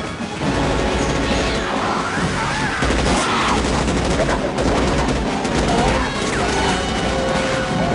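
Film battle soundtrack: several automatic rifles firing in sustained rapid volleys, mixed with film score music.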